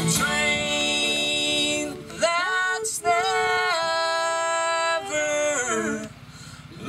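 Bluegrass band playing: long held notes in harmony that slide up and down in pitch. The sound drops away briefly near the end.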